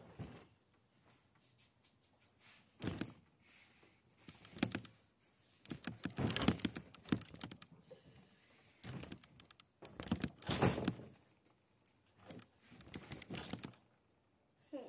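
Bursts of rapid clicking and rattling from metal parts and tools being handled on a small dirt bike during brake fitting, in several separate clusters, the loudest a little past the middle.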